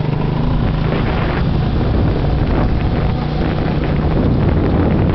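Motorbike engine running steadily while riding, with wind buffeting the microphone.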